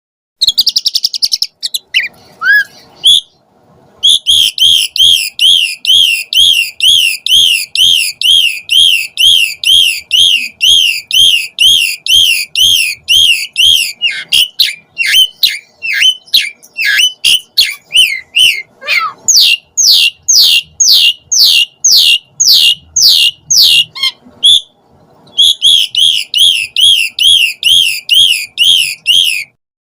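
Javan pied starling (jalak suren) singing: long runs of loud, evenly repeated high whistled notes, about three a second, broken near the middle by a run of quick falling notes.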